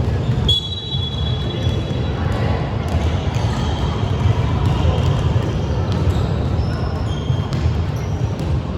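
Basketball game play on an indoor court: a ball bouncing and short high squeaks of sneakers, over a steady low rumble in a large hall.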